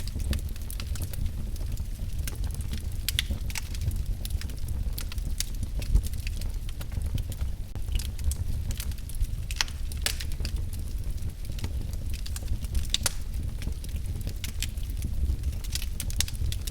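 Wood fire crackling in a fireplace: irregular sharp pops and snaps over a steady low rumble, with one louder pop about six seconds in.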